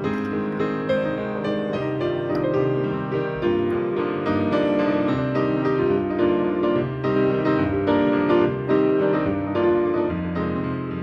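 Background piano music, a run of notes struck one after another.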